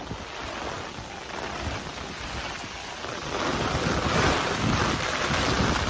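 Hurricane wind and rain, with gusts buffeting the phone's microphone; it grows louder a little past halfway.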